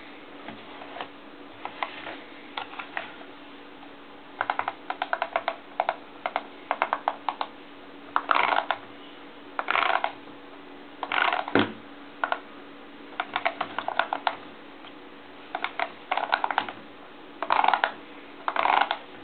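Button pads of a Bliptronic 5000 grid controller, converted into a monome, clicking under fingers pressing and sweeping across them: flurries of quick clicks, some packed into dense clusters, with short pauses between. A steady low hum runs underneath.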